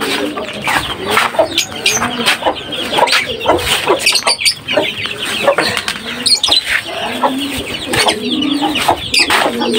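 Domestic hen clucking among her chicks, with many short, high peeps from the chicks throughout.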